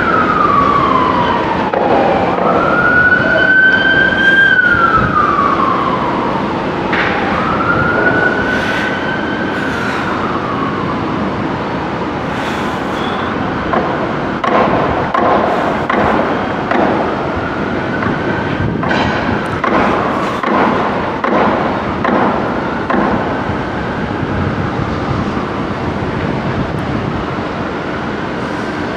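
Emergency vehicle siren wailing in slow rising and falling sweeps, loudest in the first third and then fainter. Scattered sharp knocks join in from about the middle.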